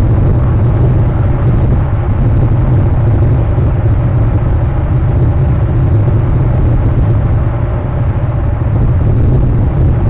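Steady loud low rumble of wind buffeting an outdoor webcam microphone, with no distinct events.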